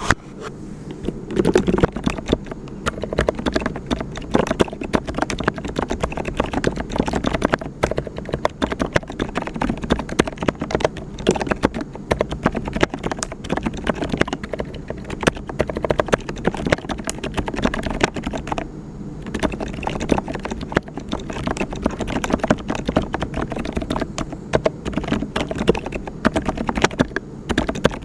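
Mechanical keyboard with brown tactile switches being typed on continuously, a rapid stream of key clacks, several a second, that never stops for long.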